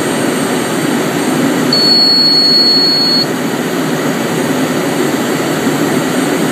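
Steady jet engine and airflow noise heard inside the cockpit of a Cessna Citation Ultra on final approach, from its twin turbofans. About two seconds in, a single high steady beep sounds for about a second and a half.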